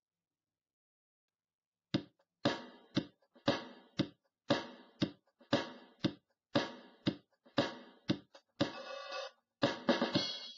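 Background music: a drum beat of evenly spaced hits, about two a second, coming in after about two seconds of silence.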